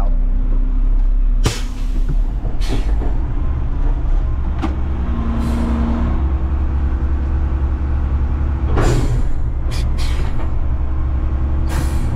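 Front-load garbage truck's diesel engine running steadily, with several short hisses of air from its air-brake system at irregular moments, the largest about nine seconds in.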